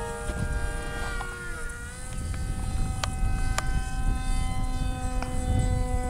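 Electric motors and propellers of small Depron foam RC planes whining in hover, their pitch stepping with the throttle about one and a half to two seconds in. Wind buffets the microphone underneath, with a couple of sharp clicks in the middle.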